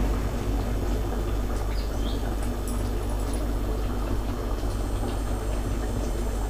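Fish curry boiling uncovered in a pan: a steady bubbling hiss with a few faint pops over a low steady hum.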